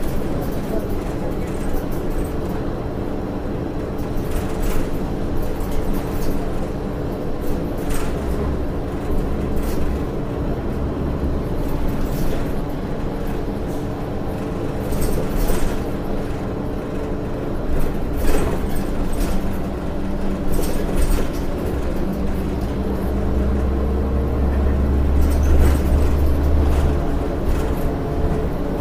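Cabin of a 2006 Orion VII low-floor transit bus under way, with its Cummins ISL9 diesel and Allison automatic transmission running as a steady low drone. Scattered knocks come from the body. The drone swells and grows heavier for a few seconds near the end, as the bus pulls away or accelerates.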